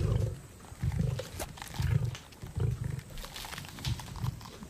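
Lions growling at a kill: a run of short, deep growls about once a second, with a few sharp cracks between them.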